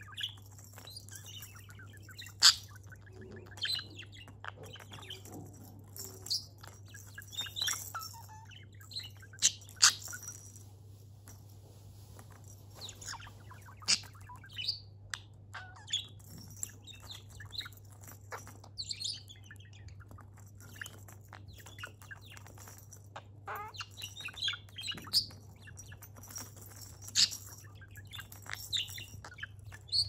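Budgerigar chirping and chattering in short bursts while pecking at a wooden spinning toy, with scattered sharp clicks and rattles from its plastic balls, which have bells inside, as the beak strikes them and they turn; the clicks are the loudest sounds.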